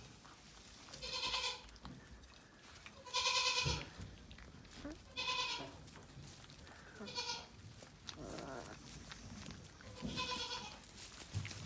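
Kangal puppies whining: short high-pitched cries about every two seconds, six in all, the loudest about three seconds in.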